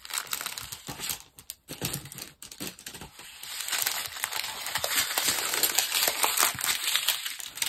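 Small plastic bags of diamond painting drills crinkling as they are handled, in scattered crackles at first and a steadier rustle from about halfway.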